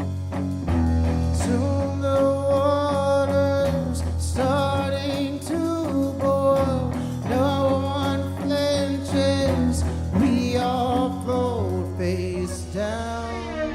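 Live band music: guitar, bass and drums with a sustained, gliding melodic lead line over them. About twelve and a half seconds in, the texture changes to a held, swelling sound.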